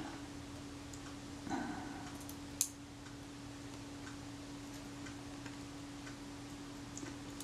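A few faint clicks and taps of small tools and metal camera parts being handled, with one sharp click about two and a half seconds in, over a steady low hum.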